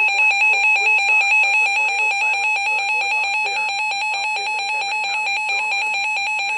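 Emergency Alert System attention signal: a loud, steady electronic alarm tone that pulses slightly, sounding ahead of a severe thunderstorm warning.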